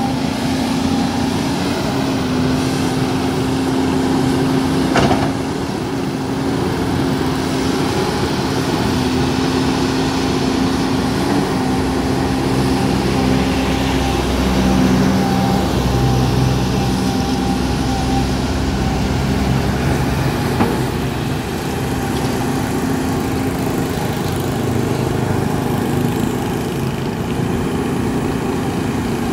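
Volvo EC210B LC crawler excavator's diesel engine running steadily as it digs in wet mud. The engine gets a deeper rumble for several seconds in the middle, and there is a single sharp knock about five seconds in.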